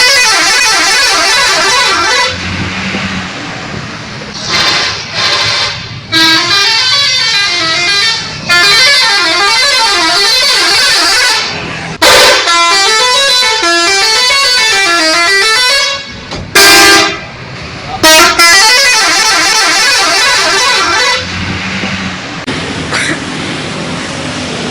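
Bus 'telolet' horns: multi-tone horns playing quick up-and-down melodic tunes in a run of loud bursts with short breaks. They stop about 21 seconds in.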